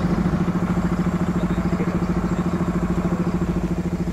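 An engine running steadily with a rapid, even throb.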